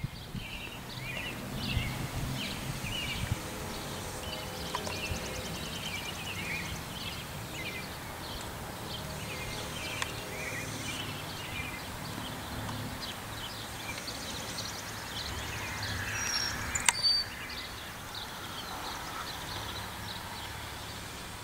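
Birds chirping and singing in many short, high notes over a low steady outdoor rumble, with a brief sharp click and a few high whistled notes about three-quarters of the way through.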